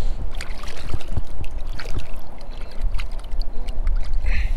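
Hands swishing and splashing in shallow creek water, being rinsed, with many small irregular splashes and drips.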